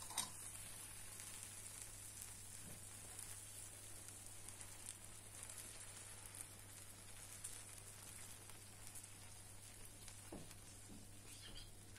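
Syrup poured over hot, freshly baked kunafa, giving a faint steady sizzle with fine crackling as it soaks into the crisp pastry.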